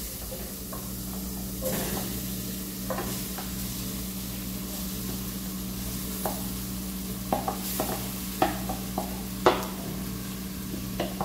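Olive oil and garlic sizzling in a stainless steel pan as a wooden spoon stirs, over a steady low hum. From about six seconds in come a series of sharp taps and knocks as mashed potato is scraped off a plate into the pan with the wooden spoon.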